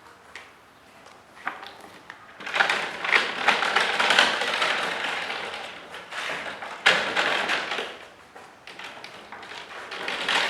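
Wooden parts of a folding fair-stall case being handled: a few light taps, then a few seconds of scraping and rattling with small knocks, and a single sharp knock about seven seconds in, followed by scattered taps.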